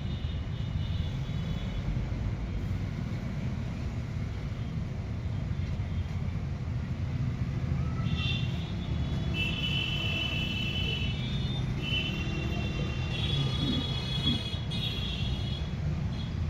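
Steady low rumble of passing vehicle traffic. Intermittent high-pitched squeals come in over it about halfway through.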